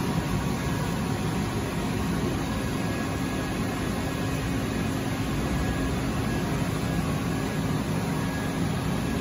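Steady machine hum with a constant hiss from a hydraulic high-frequency welding machine running with its press head lowered through a timed weld cycle.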